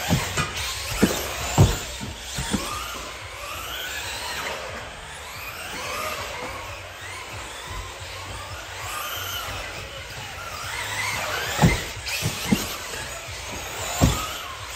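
Electric RC buggy (Schumacher CAT L1R) motor and drivetrain whining, rising and falling in pitch as the throttle is worked round the track. Several sharp thumps stand out, a cluster near the start and another near the end, as the car lands off jumps.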